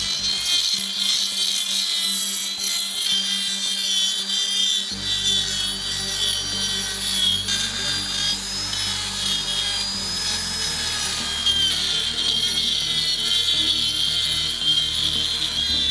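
Handheld electric rotary engraving tool with a small cutting disc grinding into granite: a high-pitched whine with a gritty grinding edge, its pitch wavering as the disc bites into the stone.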